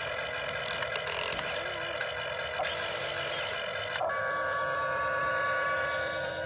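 Huina 1592 RC excavator's electric gear motors whining as the arm lifts a bucket of sand, with a few sharp clicks about a second in. From about four seconds in a steadier whine sets in as the cab swings round.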